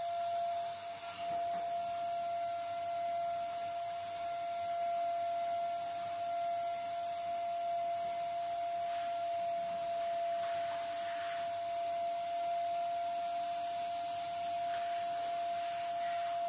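Canister vacuum cleaner running steadily, its motor giving an even, high-pitched whine over a rushing hiss, while the floor nozzle is pushed back and forth over a rug.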